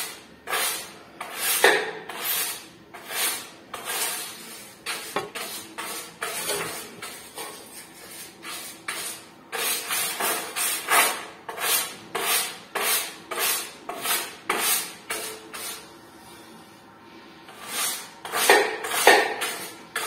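A brush scrubbing dust off a ceiling fan's motor housing in quick back-and-forth strokes, about two a second, with a short pause about three-quarters of the way through.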